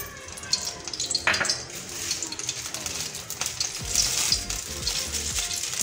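Cooking oil sizzling and crackling in a non-stick frying pan as it heats, freshly poured in, the crackle growing louder after the first couple of seconds.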